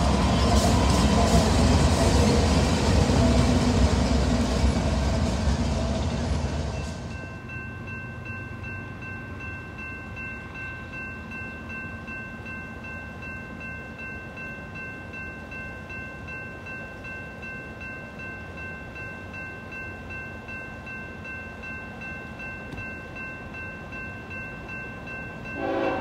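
BNSF GE diesel freight locomotives passing close by, a loud, dense rumble of engines and wheels for the first several seconds. Then it cuts abruptly to a quieter steady chord of high tones that holds unchanged for the rest of the time.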